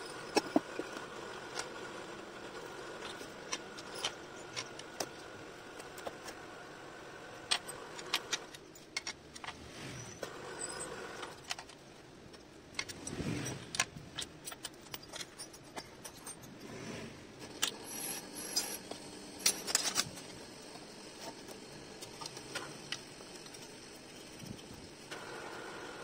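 Steel parts and tools clinking and tapping on an aluminium scooter crankcase as it is handled and fitted together: scattered sharp metallic clicks, with a short scrape about halfway through, over a faint steady hum.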